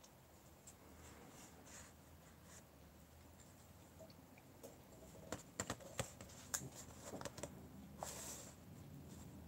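Faint clicks and taps from handling a paintbrush, palette and paper while watercolor painting, clustered in the second half. A brief soft swish follows near the end.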